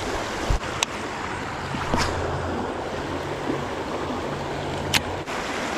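Creek water rushing steadily over a low dam and riffle, with a few light clicks.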